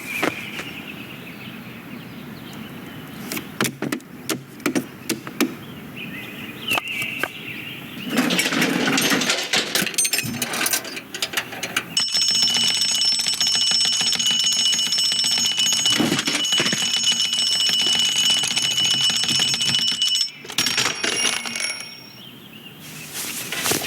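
Mechanical bell alarm clock ringing: a rapid, high metallic ring held for about eight seconds from about halfway in, then cut off abruptly. Before it come quieter scattered clicks and a burst of rustling noise.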